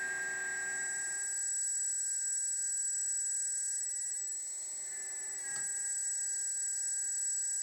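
Hydraulic pump motor of a LESU 1/14 wheeled RC excavator running with a steady high whine. About four seconds in, its tone shifts slightly and the level dips for a second or so, then it settles back.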